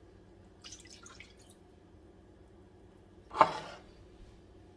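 Soy sauce poured from a small bowl into a stainless steel mixing bowl, splashing once loudly about three and a half seconds in. A few faint clicks come about a second in.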